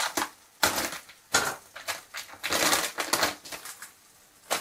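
Plastic wrapping on a block of mozzarella cheese crinkling as it is pulled open by hand, in irregular bursts that die down near the end.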